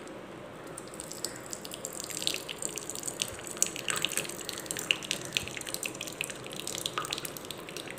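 Cooking water trickling in a thin stream from a tilted pressure cooker into a small bowl, with a patter of small drips and splashes.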